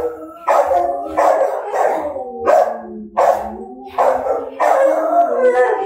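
Rottweilers barking and howling together: a sudden pitched bark-howl about every two-thirds of a second, overlapping one another, with a longer drawn-out low howl running under them in the middle.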